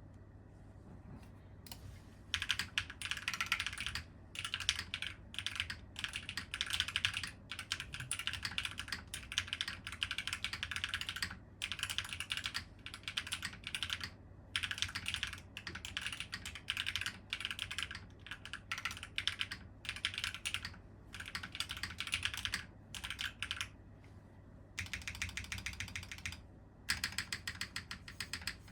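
Typing on a Geonworks F1-8X V2 mechanical keyboard with stock prelubed Geon Raw HE magnetic switches on an aluminium leaf-spring plate and GMK keycaps. Rapid runs of keystrokes come in bursts of a second or two with short pauses between them, starting about two seconds in.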